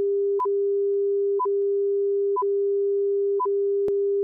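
Steady test tone running under a broadcast ad's countdown slate, with a short, higher beep once a second marking each count, and a sharp click near the end.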